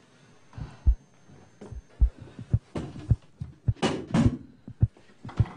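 Deep, heartbeat-like thumping, about two beats a second, with bursts of rustling and scuffling of a struggle about three to four seconds in.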